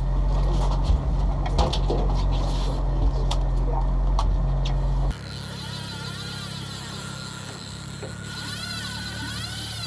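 Outboard motor running as the boat trolls, a steady low hum with wind and several sharp clicks from the gear. About five seconds in, the sound cuts to a quieter steady hum with a thin wavering whine over it.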